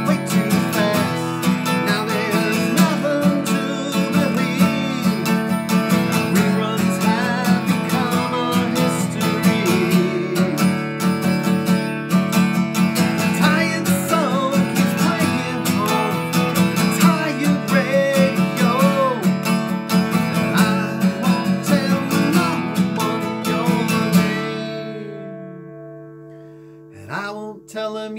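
Acoustic guitar strummed steadily in an instrumental break with no singing. About four seconds before the end the strumming stops and the last chord rings out and fades, then a short knock and the strumming starts up again.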